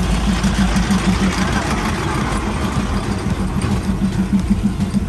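Diesel train engine running with a steady rhythmic throb as the train moves slowly through a market.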